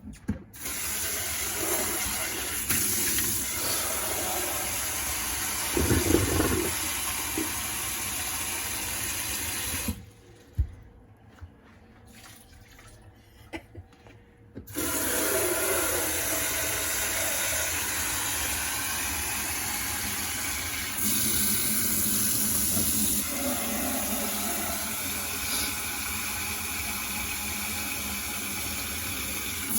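Water running from a tap into a cooking pot. It stops about ten seconds in and starts again about five seconds later.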